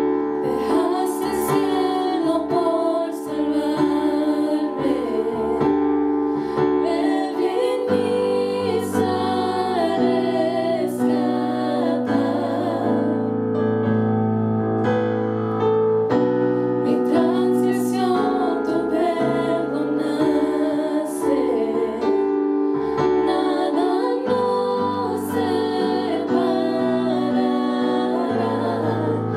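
Three women singing a Christian worship song into microphones, backed by keyboard accompaniment with sustained held notes.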